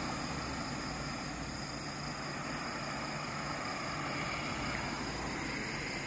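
Steady hum of road traffic from a nearby highway, an even noise with no distinct passes.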